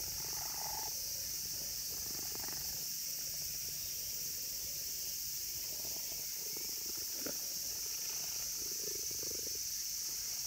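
Steady, unbroken high-pitched drone of an insect chorus, with a few soft rustles and one brief click near the middle.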